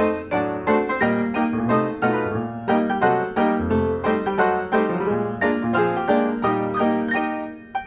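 Lively solo piano music: quick runs of notes over a repeating pattern of bass notes and chords, with a brief break near the end.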